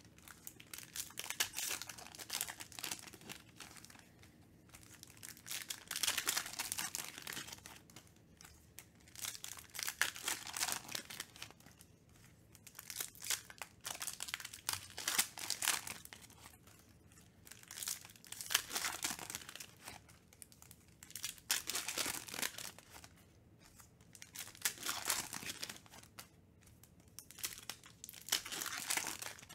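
Wrappers of Donruss Optic basketball card packs being torn open and crinkled by hand, one pack after another, in bursts every few seconds.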